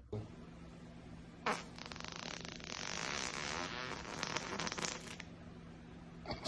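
A person farting: one long fluttering fart lasting about three and a half seconds, preceded by a sharp click, with a steady low hum underneath.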